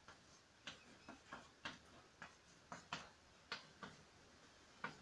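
Faint chalk on a chalkboard: a dozen or so short, irregular taps and scratches as straight lines and arrowheads for a pair of axes are drawn.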